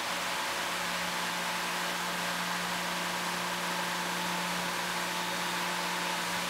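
Tormach CNC mill machining aluminium: the spindle runs steadily with an end mill cutting the plate, under a steady hiss from the air nozzle aimed at the cutter.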